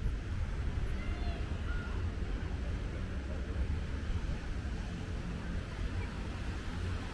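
Outdoor ambience: a steady low rumble of wind on the microphone, with faint distant voices.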